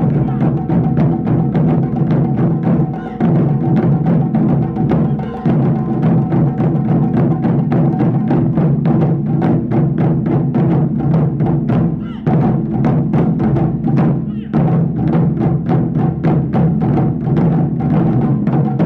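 Japanese taiko drums (wadaiko) played in a fast, driving rhythm of dense strikes, with the drums ringing on beneath the beats.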